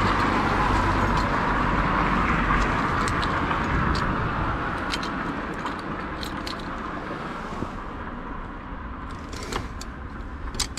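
A road vehicle passing on the street, its tyre and engine noise fading away over several seconds, with scattered small metallic clicks and jingles close by.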